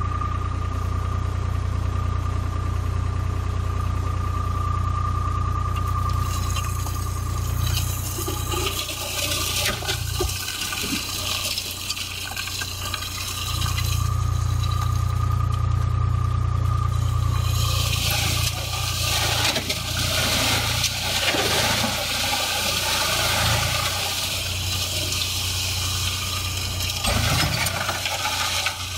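Tractor engine running steadily with a steady whine while the hydraulic ram tips the trailer bed up. Then a long rushing, scraping sound as the load slides out of the tipped bed, loudest in the second half.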